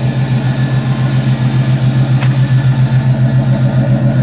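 Chevrolet K5 Blazer's engine idling steadily with an even, regular pulse.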